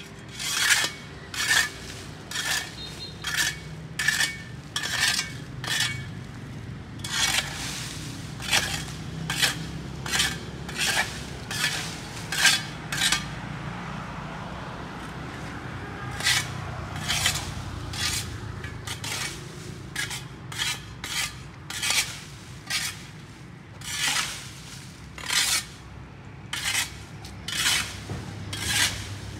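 A metal hand tool scraping and striking the sidewalk pavement in repeated strokes, about one a second, with a brief pause about halfway through. A few of the early strokes ring with a metallic tone.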